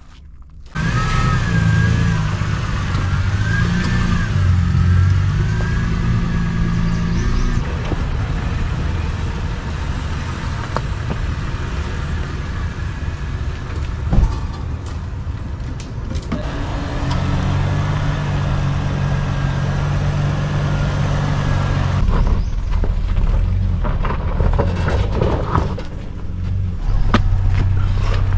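Toyota off-road SUV driving slowly on a dirt trail: steady engine sound with tyre and body noise. The sound changes abruptly a couple of times, and there is one sharp knock about halfway through.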